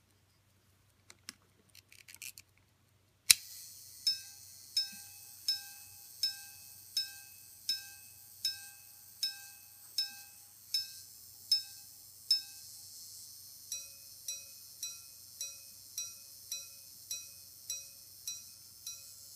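A Swiss five-minute repeater pocket watch, set going by a click of its side slide, chimes the time on its two gongs: about twelve evenly spaced strikes on one gong for the hours, then after a short pause about ten quicker strikes on a second, lower-pitched gong for the elapsed five-minute periods. A faint high hiss runs under the strikes, and a few small handling clicks come before the slide is released.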